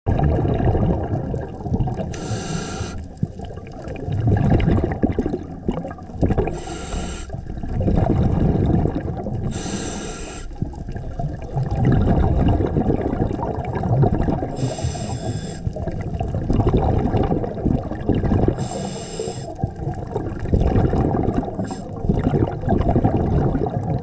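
Scuba diver breathing through a regulator underwater: a short hissing inhale about every four seconds, with the low bubbling rumble of exhaled air in between.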